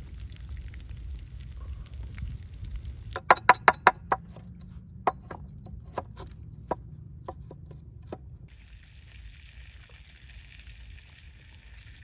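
Cooking sounds: a quick run of sharp clicks and knocks about three seconds in, then scattered single clicks, then a steady hiss from about eight seconds in.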